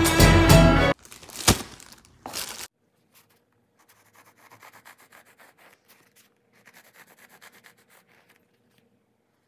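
Intro music that cuts off about a second in, followed by a knock and a short burst of noise. Then a serrated knife sawing through the crust of soft bread rolls, a faint rasp in two spells of quick strokes.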